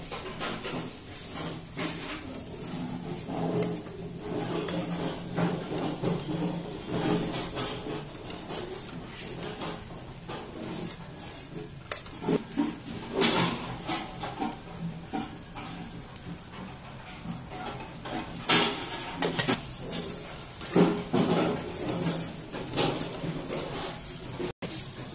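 Steel spoon scraping and knocking against a steel kadhai while flattened rice (poha) is stirred and tossed, in irregular strokes throughout.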